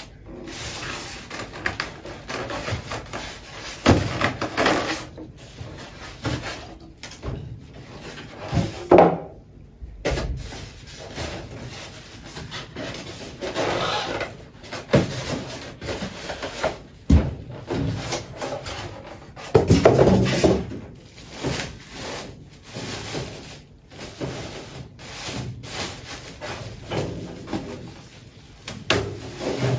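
Foam packing and plastic wrap being worked off a large electric countertop oven: irregular rubbing, scraping and rustling, with several knocks as the heavy oven is shifted on a tiled floor.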